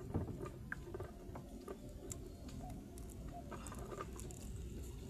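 Faint scattered clicks and rustles of gloved hands working a live shrimp onto a fishing hook and line, over a low steady rumble.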